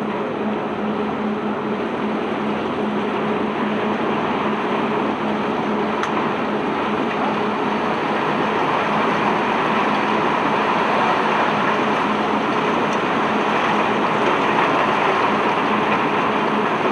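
Steady machinery noise with a constant low hum from a self-unloading ship's unloading gear running, its rushing noise swelling slightly towards the end.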